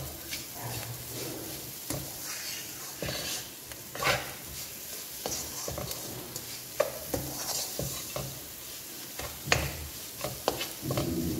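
Wooden spatula stirring and scraping a thick mixture of semolina, figs and sugar around a kadai, with a soft sizzle of ghee frying underneath on a low flame. Now and then the spatula knocks sharply against the pan.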